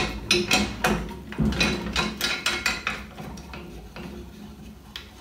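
Metal clicks and knocks as the SABRE-350 bandsaw's aluminium rip fence and its clamp casting are pushed onto and slid along the round fence rail. The knocks come thick and fast over the first three seconds, then die away.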